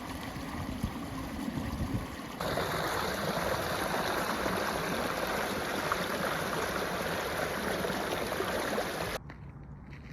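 Steady rushing of flowing water, as from a stream. It begins abruptly about two seconds in, after a stretch of low wind rumble on the microphone, and cuts off near the end to a quieter background with a few crackles.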